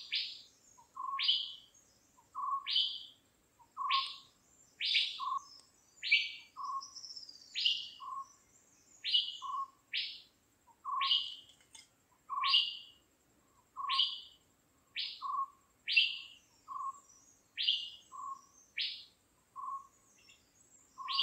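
A bird calling over and over, about once every second and a bit. Each call is a short low note followed at once by a sharp, high note that drops in pitch.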